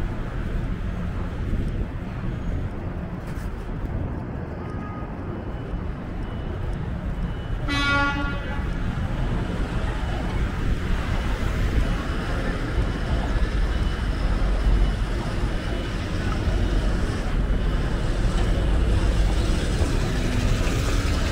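City street traffic noise, a steady low rumble of passing vehicles, with one short car horn toot about eight seconds in.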